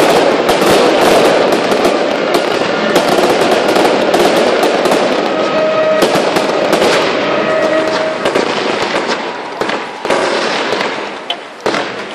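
Fireworks barrage: a dense, continuous run of bangs and crackling from aerial shells and ground fountains. It thins into separate pops and grows quieter over the last couple of seconds.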